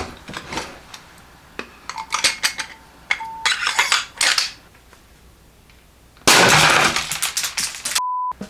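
Metal clicks and clinks of an airsoft gatling gun being handled and loaded, then a loud crackling burst of firing lasting nearly two seconds, about six seconds in. A short steady beep sounds just before the end.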